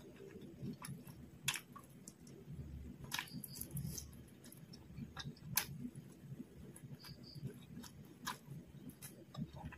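Close-miked chewing of fried quail meat, a steady uneven churn with a few sharp mouth clicks and smacks scattered through it.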